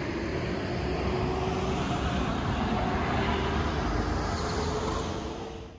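Steady outdoor rumble and rushing noise, heaviest in the low end, with a faint hum running through it; it cuts off suddenly at the end.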